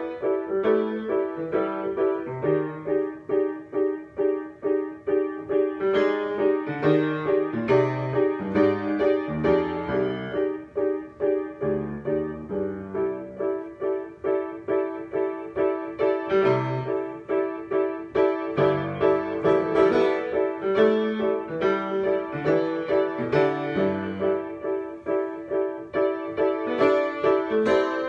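Solo piano improvisation: a quick repeated figure in the middle register runs steadily over a bass line that moves from note to note.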